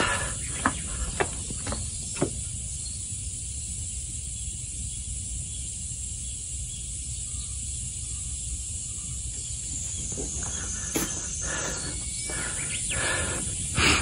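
Steady outdoor hiss with a low rumble, broken by a few sharp clicks in the first couple of seconds; over the last few seconds, footsteps on a leaf-strewn dirt path.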